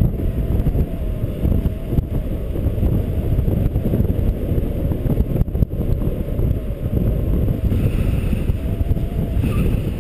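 Wind buffeting the camera's microphone in paraglider flight: a steady, loud low rushing, with a few faint high tones near the end.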